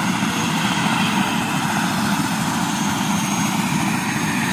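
Helicopter rotor and engine noise, steady and loud.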